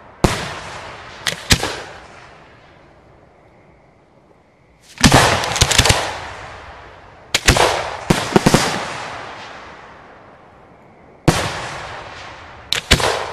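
Aerial fireworks shells firing from mortar tubes and bursting: sharp bangs, some single and some in quick clusters, with a rapid run about five seconds in. Each bang trails off in a long rolling echo.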